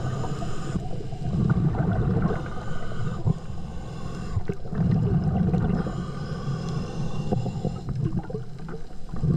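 Underwater breathing of a diver on a tankless hookah regulator, recorded underwater: exhaled bubbles gurgle past in loud low swells every few seconds between quieter inhalations.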